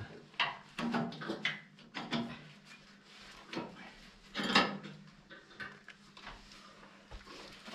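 Irregular clanks and knocks of a steel bar against the log and the sawmill's steel bed as the log is worked into position. The loudest knock comes about four and a half seconds in.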